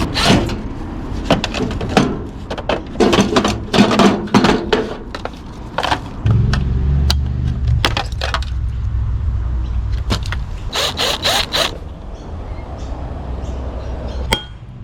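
Hand tools knocking, clicking and scraping on the metal of a washing machine motor as it is taken apart for its copper windings, with a rapid cluster of knocks at first and a quick run of four clicks later. A low rumble sets in about six seconds in and fades after several seconds.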